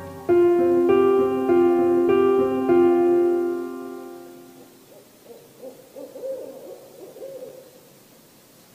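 Short closing jingle of five piano-like notes struck about half a second apart, ringing out and fading by about four seconds in. Then faint, wavering owl hoots.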